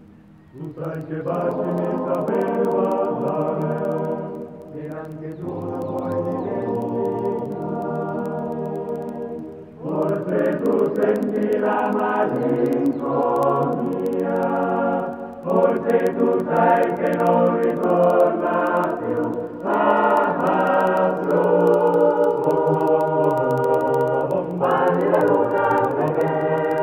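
Background music: voices singing in harmony, in long phrases that begin about every five seconds.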